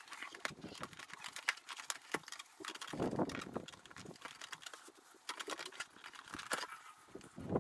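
Gloved hands fitting the plastic body and trim panels back onto a motorcycle: a run of light plastic clicks, taps and rustling, with a louder bump about three seconds in.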